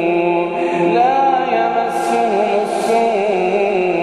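A male voice reciting the Quran in a melodic Iraqi-maqam style, drawing out one word in a long ornamented line that bends up and down in pitch. Beneath it runs a steady hummed drone of voices.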